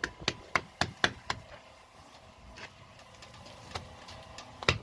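A bare hand slapping a flexible texture stamp onto fresh cement render to print the texture: quick sharp pats, about four a second at first, then a few scattered ones and a louder one near the end.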